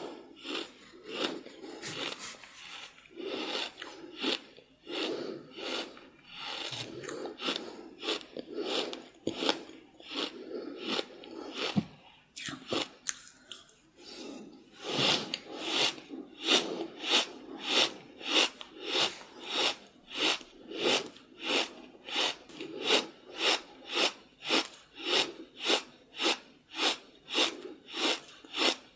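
Very heavy breathing, uneven at first, then from about halfway a fast, regular rhythm of loud breaths, about two a second.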